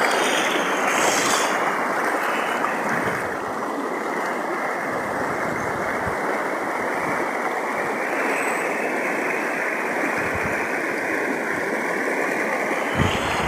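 Shallow stream of clear water running steadily over its bed, a constant rushing and burbling, with a brief low bump near the end.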